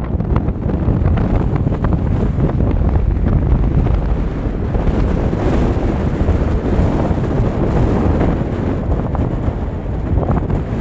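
Wind buffeting the camera's microphone: a loud, steady, gusting rumble.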